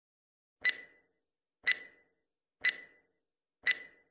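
Quiz countdown-timer sound effect: four sharp clock ticks, one a second, each with a short ringing tail.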